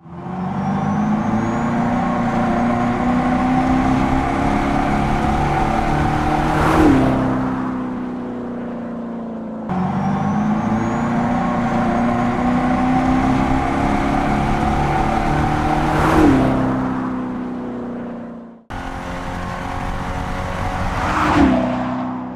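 The 2024 Dodge Charger Daytona Scat Pack, a battery-electric car, passing three times with its Fratzonic Chambered Exhaust making a synthetic engine-like drone. Each time the drone builds as the car approaches, then drops sharply in pitch as it goes by. The passes are cut together, with abrupt changes between them.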